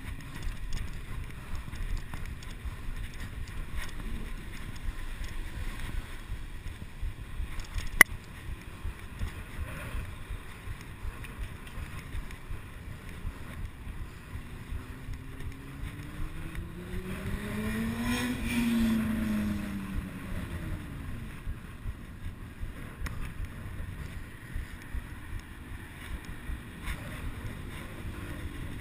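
Wind buffeting a chest-mounted action camera's microphone, with road rumble, while a bicycle is ridden fast. A car passes close by about two-thirds of the way in, its engine pitch rising and then falling. There is a single sharp click about a quarter of the way in.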